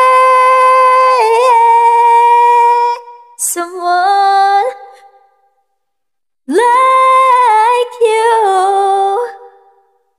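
A karaoke singer's high voice singing wordless held notes without accompaniment. A long steady note breaks into a short run, then stops. Two shorter phrases follow, sliding and stepping in pitch, with silence between them and after them.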